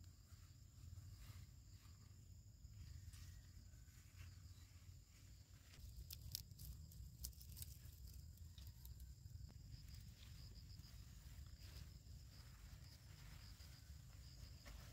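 Quiet: faint rustling and a few sharp snaps of squash shoots and leaves being picked and handled, mostly around the middle, over a steady high insect drone.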